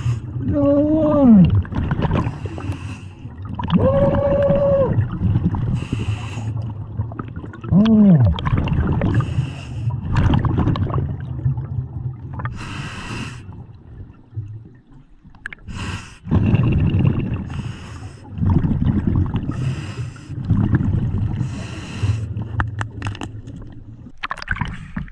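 Scuba diver breathing underwater through a regulator: a hissing inhalation about every three to four seconds, each followed by a gurgling rush of exhaled bubbles. A few short wavering tones sound in the first eight seconds.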